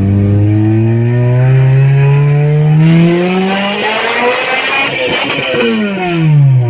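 A Toyota Corolla XRS's 2ZZ-GE four-cylinder engine under hard acceleration. Its pitch climbs steadily through a gear and turns harsher and louder about three seconds in, then drops sharply near the end as it shifts up.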